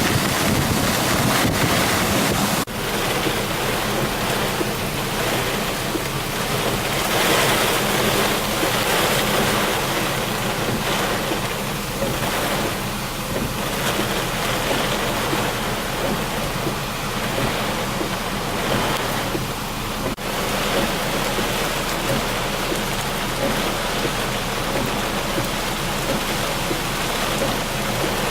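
Loud, steady rush of water in a typhoon downpour, with two brief sharp breaks, one near the start and one about two-thirds through.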